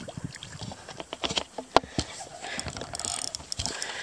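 Fishing reel clicking and ratcheting in irregular runs while a big fish hooked on a spoon lure is played.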